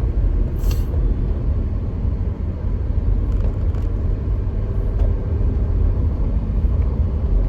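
Steady low rumble of a car being driven, heard from inside the cabin, with a couple of faint brief clicks.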